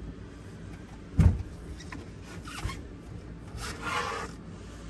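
Upholstered camper dinette cushions being lifted and shifted: a thump about a second in, then fabric and foam rubbing and scraping against the wooden bench.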